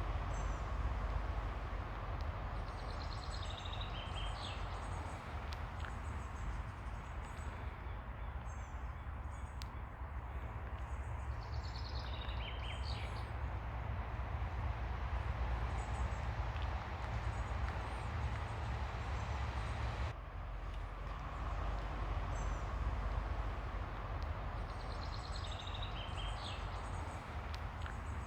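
Steady wash of ocean surf with a low rumble underneath, and a bird calling three times, each call a quick run of falling notes.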